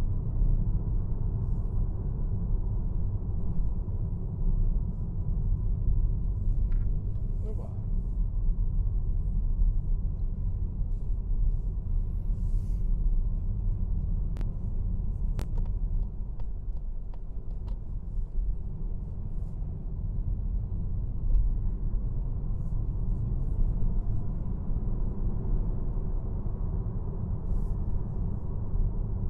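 Mazda MX-30 electric car driving on city streets: a steady low rumble of road and tyre noise, with a couple of sharp clicks about halfway through.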